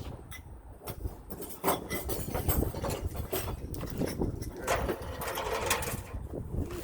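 Irregular clatter of knocks and rustling, sharpest and busiest in the middle, over a low rumble.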